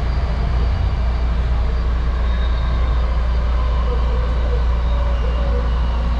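Steady low rumble of a train in motion, running evenly throughout.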